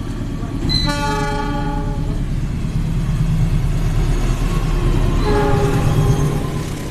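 Diesel locomotives passing close by with their engines rumbling, the horn sounding twice: a blast of about a second just after the start and a second one about five seconds in. Tank wagons roll past behind the locomotive near the end.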